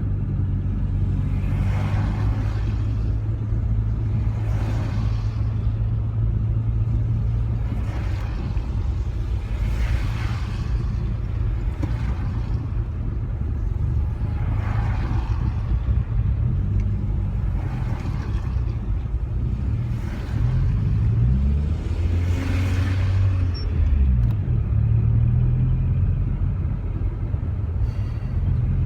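Rover 45's engine heard from inside the cabin, running low and steady while the car crawls in slow traffic. About two-thirds of the way through, the engine note rises and wavers as the car pulls forward. A soft swish recurs about every two and a half seconds.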